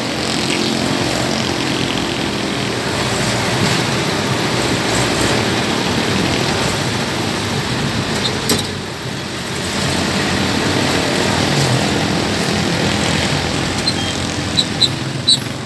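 Engine and road noise heard from inside a moving vehicle, steady, with a brief dip a little past halfway. A few short high chirps near the end.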